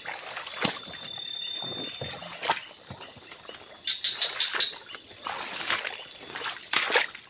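Night insects trilling steadily in one high tone, with irregular rustling and light splashing steps through swampy undergrowth.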